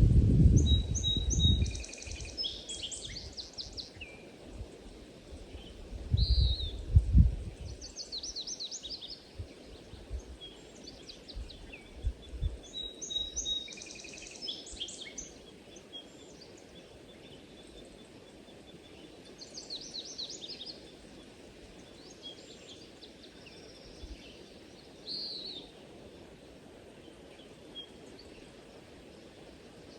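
Songbirds chirping and singing in short repeated trilled phrases every few seconds over a steady background hiss. There are a few low rumbles, strongest in the first couple of seconds and again around a quarter of the way in.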